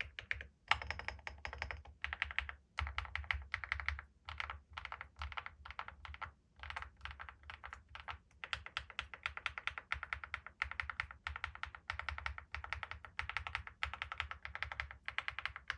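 Fast typing on an Akko SPR67 aluminium spring-mount mechanical keyboard with factory-lubed HMX Cheese switches and Cerakey ceramic keycaps: a dense run of key clacks broken by a few brief pauses.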